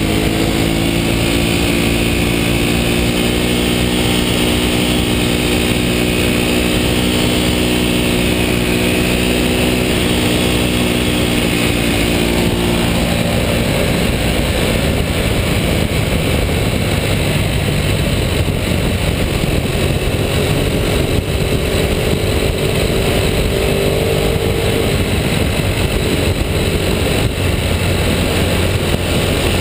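Ducati V-twin sportbike riding at steady speed: the engine note is clear for the first dozen seconds or so, then is largely covered by wind and road rush over the bike-mounted camera, with the engine showing through again briefly near the end.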